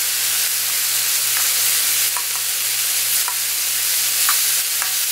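Soy-marinated sliced duck sizzling on a hot griddle as metal tongs stir and turn it: a steady hiss with scattered small clicks and pops.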